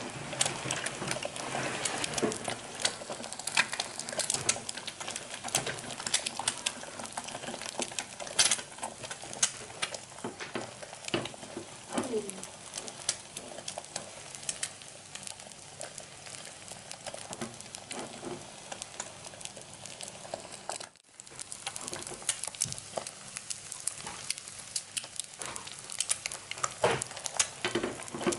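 An egg frying in oil in a small pan on a gas burner: steady sizzling dotted with many sharp crackles and pops, with a brief break about two-thirds of the way through.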